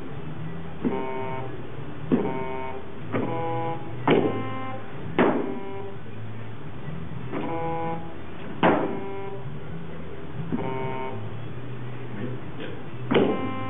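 A giant floor-sized Simon game sounding its electronic tones: about ten short buzzy beeps at a few different pitches as the pads are stepped on, several starting with a sharp thud of a foot landing on a pad.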